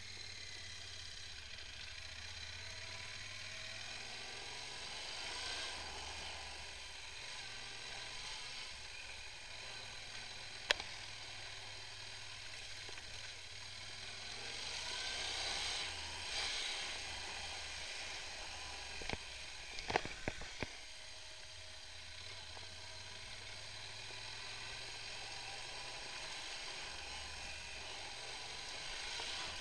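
Yamaha XT1200Z Super Ténéré's parallel-twin engine running at low revs on a dirt track, its pitch stepping up and down with the throttle, under a steady hiss. A single sharp knock comes about a third of the way in, and a quick cluster of knocks and rattles about two-thirds in, as the bike jolts over the ruts.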